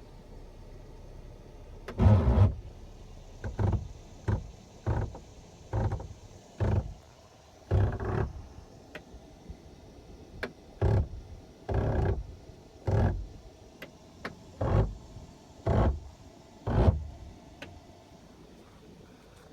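Tesla Model X front door's motor grinding in a series of about fourteen short bursts, irregularly spaced, each under a second long: the door's auto-presenting mechanism has failed.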